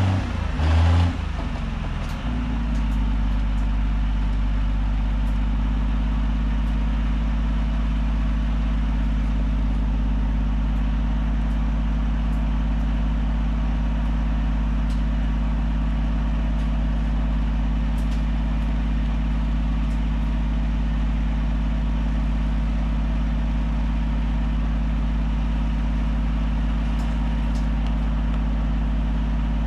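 An engine runs steadily at a constant speed. About two seconds in it settles from an unsteady, shifting pitch, and a few faint light clicks come over it.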